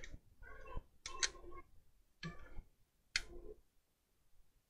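Faint handling of a wireless computer mouse: five short clicks, each with a brief rattle, spaced irregularly over the first three and a half seconds.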